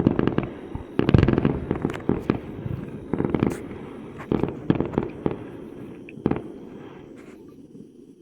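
Fireworks bursting in a rapid, irregular run of bangs and crackles, thinning out to a few bangs in the last couple of seconds.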